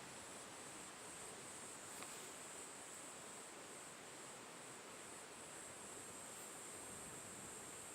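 Faint, steady rustle of wind through foliage in a mountain valley, over a steady high-pitched insect chorus. A single light click about two seconds in.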